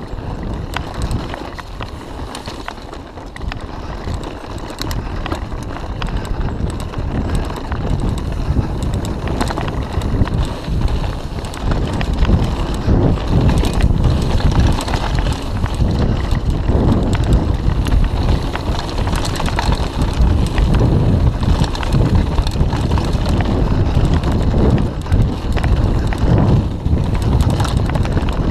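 Mountain bike ridden fast over a dirt forest trail: the tyres rumble over the ground and the bike rattles and knocks over bumps and roots, with wind buffeting the microphone. It gets louder and rougher from about halfway through.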